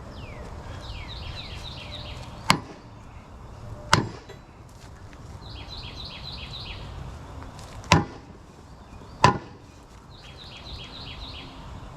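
Four hammer blows on the stuck gear and back plate of a Tulsa 34 winch, struck in two pairs about a second and a half apart, to drive the parts loose from the shaft. Short runs of fast, high chirping sound between the blows.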